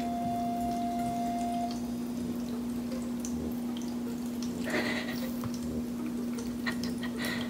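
Cat lapping and poking at the running stream of an electric pet water fountain, with two short splashes about five seconds in and near the end, over a steady electric hum. A held musical tone from a sound effect fades out in the first two seconds.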